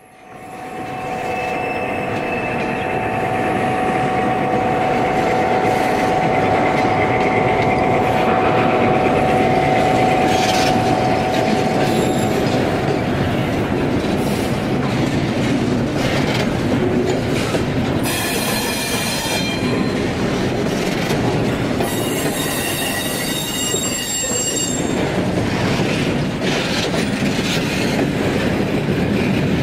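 1:29-scale model freight train rolling past on a curve: a steady hum as the diesel locomotive goes by, then the cars' wheels clicking and rumbling over the track. The wheels squeal on the curve briefly about two-thirds of the way in, and again for a few seconds soon after.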